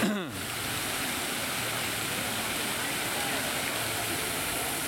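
Fountain jets spraying and falling back into a shallow pool: a steady rush of splashing water. A short sound falling in pitch, like a voice, comes right at the start, and faint voices are heard in the background.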